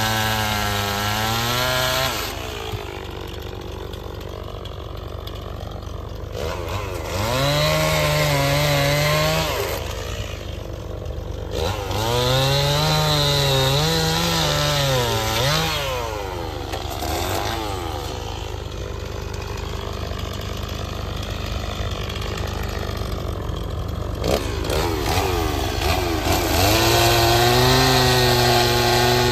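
Stihl chainsaw cutting through an oak limb: it revs to full throttle four times, its pitch sagging and wavering as the chain bites into the wood, and drops back to idle between cuts.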